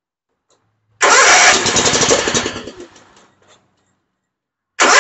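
Kawasaki engine on a Toro TimeCutter zero-turn mower being cranked on the key twice, the first try about a second in fading out after a couple of seconds and the second starting near the end. It barely catches and will not keep running: a fuel-related no-start, bad gas or trash in the carburetor.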